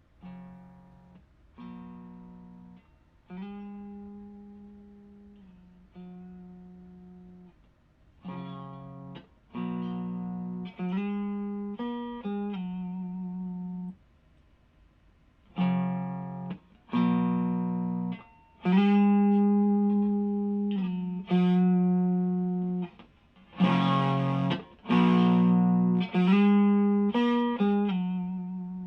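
Electric guitar played through an Xotic Effects SL Drive overdrive pedal: a Stratocaster's neck single-coil pickup into an Orange Micro Dark amp and a 2x12 cab. Overdriven chords and notes are struck and let ring for a second or two each, with short pauses between them. The playing gets louder about halfway through.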